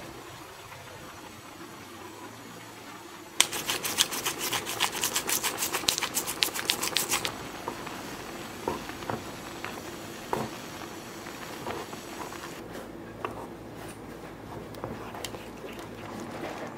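Green spinach cream sauce simmering in a pan with a low steady bubbling hiss. About three seconds in, some four seconds of rapid dry clicking as red pepper is added. Then a few light knocks of the spatula against the pan as the sauce is stirred.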